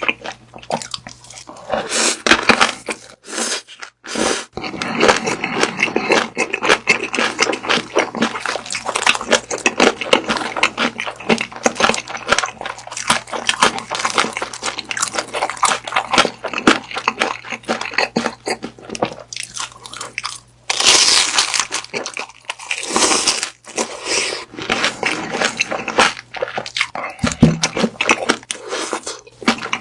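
Close-miked eating of grilled beef sausage: biting through the crisp casing and wet, crunchy chewing, almost continuous with a few short pauses.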